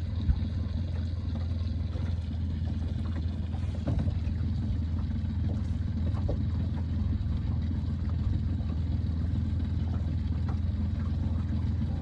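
Steady low rumble, with a brief knock about a third of a second in.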